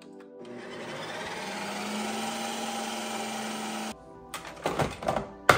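Ninja Creami ice cream maker running, its motor and blade whirring steadily as it churns a frozen pint of fruit; the sound cuts off suddenly a little before four seconds in. A few sharp clicks and knocks follow.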